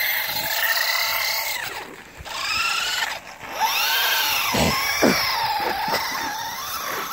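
Electric motor of an RC buggy whining, its pitch rising and falling in repeated arcs as the throttle is worked, with sharp drops in pitch a little over halfway through.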